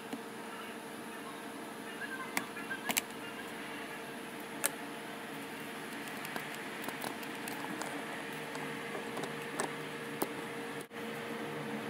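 A handful of small sharp clicks and taps, irregularly spaced, over a steady background hum.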